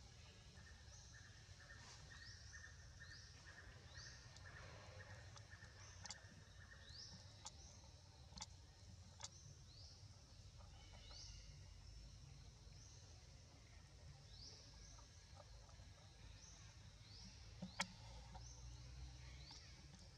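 Faint tropical forest ambience: a short, high, rising chirp repeats about once a second with pauses, over a steady high pulsing trill during the first third. A few sharp clicks sound in the middle, and the loudest comes near the end.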